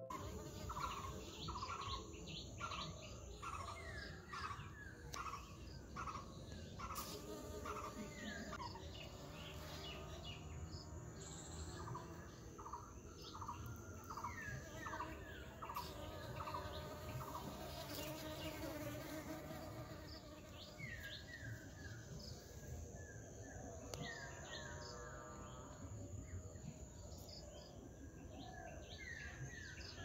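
Faint outdoor ambience of honeybees buzzing, with several runs of short chirping calls repeated about twice a second.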